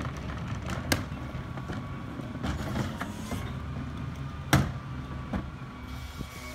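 2017 Ez-Pack Goliath rear-loading garbage truck's CNG engine idling steadily while trash carts are tipped into its hopper by hand. Plastic carts knock against the hopper several times, loudest about four and a half seconds in.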